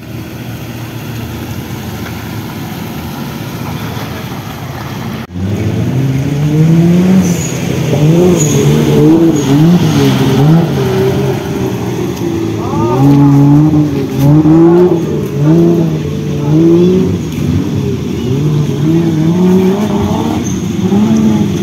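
Engine of a modified off-road vehicle running. From about five seconds in it is loud and revved up and down over and over, the pitch climbing and dropping roughly once a second.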